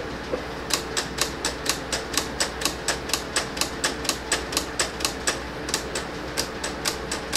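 Silhouette Cameo cutting machine's AutoBlade clicking over and over, about four clicks a second, with a short pause past the middle, over a faint steady hum. The machine is stepping the blade through its depth settings to set the right height for the selected material.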